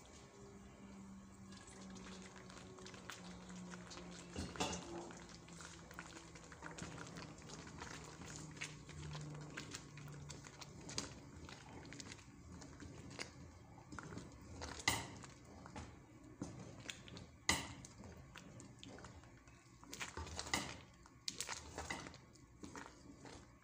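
Wooden spoon stirring and mashing thick, wet rice in a stone-coated pot, with scattered knocks of the spoon against the pot and a few sharper ones in the second half. A low steady hum runs underneath through roughly the first half.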